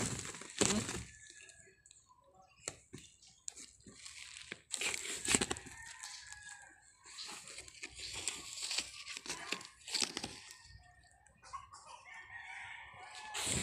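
Plastic tarpaulin crinkling and rustling in irregular bursts under a tabby kitten's paws as it plays and walks on it, with a rooster crowing in the background.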